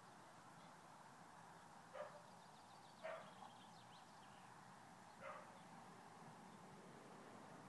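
A dog barking faintly three times, short single barks spread over a few seconds.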